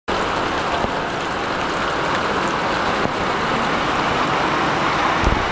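Heavy rain pouring onto a road, a steady, even hiss of downpour on wet asphalt, with passing cars' tyres swishing through the water.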